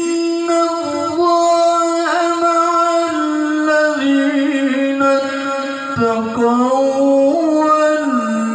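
A male qari chanting Quran recitation (tilawah) in long, melodic held notes with ornamented wavering. The pitch steps lower in stages toward the end of the phrase.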